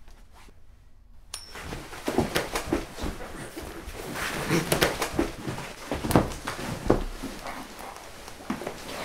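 A sudden knock about a second in, then a scuffle: repeated thumps and knocks, clothing rustling, and grunts as people wrestle on the floor.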